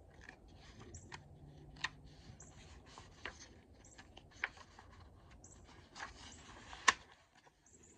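Paper pages of an old picture book being handled and turned: a few light clicks and taps, then a paper rustle about six seconds in that ends in a sharp snap as the page flips over just before seven seconds. Faint high bird chirps repeat every second or so behind it.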